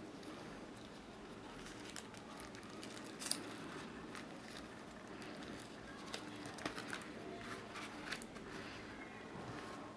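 Faint rustling and crinkling of a photo album's plastic sleeves as its pages are handled and turned, with scattered soft clicks; the sharpest crackle comes about three seconds in, and a cluster follows a few seconds later.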